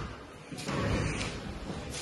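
Handling noise from a body-worn hidden camera as the wearer walks: a rustling, scraping swell lasting about a second and a half, from clothing rubbing over the microphone.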